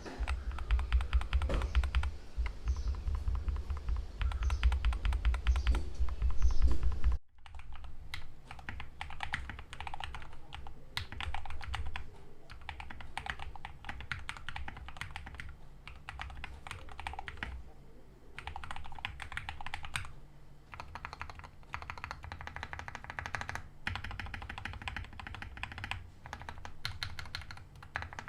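Typing on a mechanical keyboard fitted with Akko CS Ocean Blue tactile switches: a rapid, continuous run of key clicks and bottom-outs. About seven seconds in the sound cuts abruptly to a quieter, thinner take of the same typing, which goes on in bursts with short pauses.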